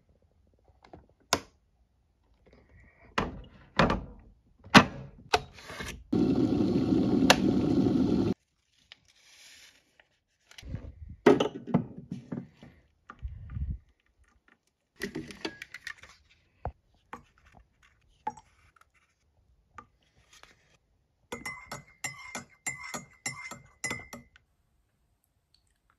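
Making instant coffee with a hotel-room kettle and mug: scattered clicks and knocks, a two-second burst of steady rushing noise, water poured from the kettle into a ceramic mug, and near the end a teaspoon stirring and clinking rapidly against the mug for about three seconds.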